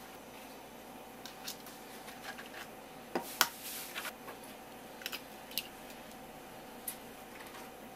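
A few short, sharp clicks and taps from eggs being cracked and handled over a stainless steel bowl. The loudest comes about three and a half seconds in. A faint steady hum runs underneath.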